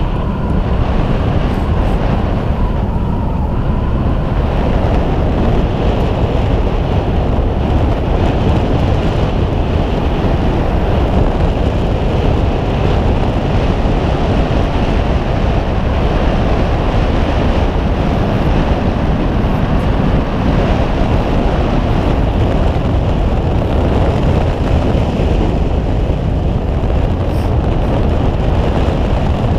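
Steady wind noise on the microphone over a whale-watching boat running on open sea, its engine and the water along the hull blending into one even rush.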